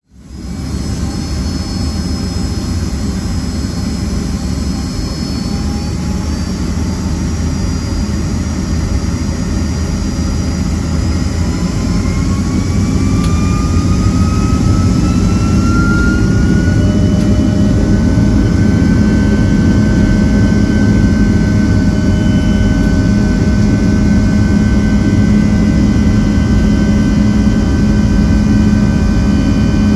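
Boeing 757-200's Rolls-Royce RB211-535E4B turbofan engines heard from inside the cabin, running with a steady deep rumble. About eleven seconds in, a whine rises in pitch over several seconds and then holds, a little louder, as the engines spool up.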